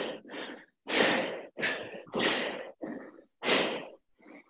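A person breathing hard and fast after a set of burpees, loud breaths in and out at about two a second: winded from the exercise.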